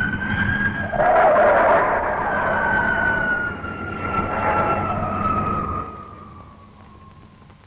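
Animated jet airliner's engines: a high whine that rises slightly, then slowly falls as the engines wind down after landing. A rushing noise comes in about a second in and fades out over the last couple of seconds.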